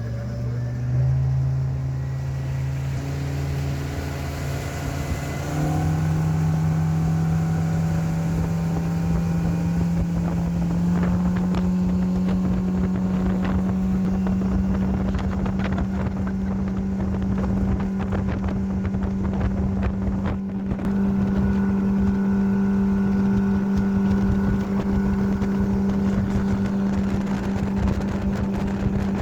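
Speedboat engine speeding up, its pitch climbing in steps over the first several seconds, then running steadily at high speed. Wind buffets the microphone, and frequent short knocks sound from about ten seconds in.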